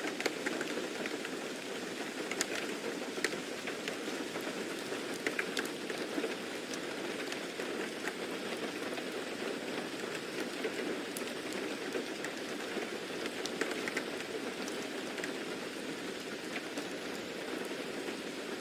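Steady rain falling, a continuous hiss with scattered distinct drop taps.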